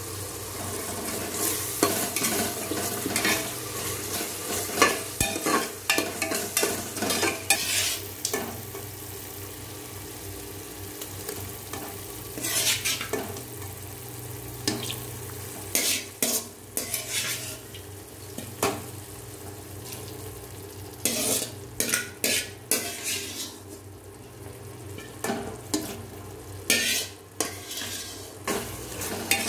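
Metal ladle stirring and scraping thick chicken masala in a pressure cooker on the stove, in irregular runs of strokes with short pauses, over a steady low hum.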